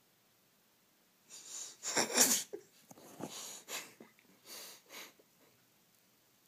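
A cat's noisy breathing through the nose: a quick series of about seven short, hissing bursts, the loudest about two seconds in.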